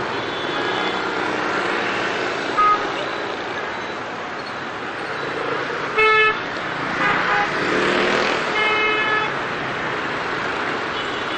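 Dense motorbike traffic with engines running, cut by several short horn toots; the loudest toot comes about six seconds in, with more just after it.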